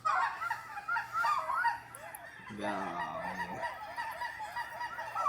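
A large flock of geese honking, with many short calls overlapping one another without a break.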